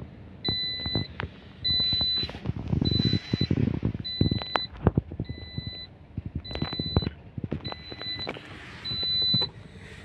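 Toyota Corolla's seatbelt reminder chime beeping repeatedly, short steady beeps a little under one a second, sounding because the car is moving with the driver's belt unfastened. Scattered knocks and rattles from the moving car sound between the beeps.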